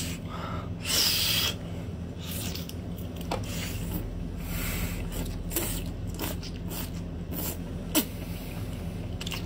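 Wet slurping and sucking as octopus tentacles are drawn into the mouth, in irregular hissy bursts (the loudest about a second in) with sharp smacking clicks, the strongest near the end.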